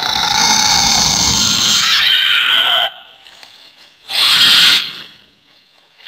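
Cartoon monster snarl sound effects: one long snarl of nearly three seconds whose pitch drops at its end, then a shorter snarl about four seconds in.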